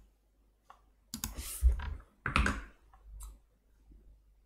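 Clicks of a computer mouse and keyboard at a desk, with a louder clatter of desk and handling noise about one to two and a half seconds in.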